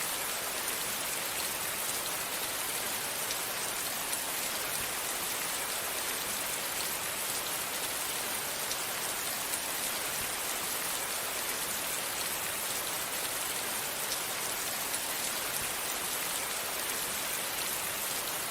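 Soft, steady rain falling on green foliage: a dense, even hiss of rain with faint scattered drop ticks.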